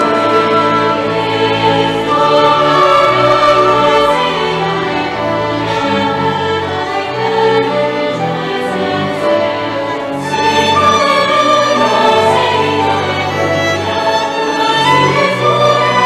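A mixed church choir singing a Christmas piece with violins and a double bass, in sustained phrases; a new phrase begins about ten seconds in.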